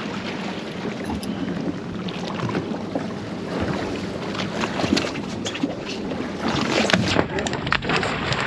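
Wind buffeting the microphone and water slapping against a fishing boat's hull, with a hooked fish splashing at the surface alongside near the end.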